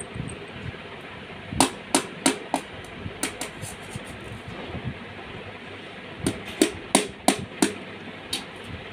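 A metal spoon clinking and scraping against a stainless steel plate as noodles are scooped. The sharp clinks come in two runs, four or five quick strikes about a second and a half in and another run from about six seconds in, over a steady background hiss.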